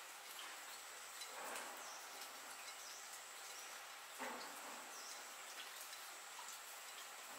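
Faint background hiss with a thin steady high tone. Two soft brushing sounds, about a second and a half and four seconds in, come from hands pressing and shaping mashed potato on a plate.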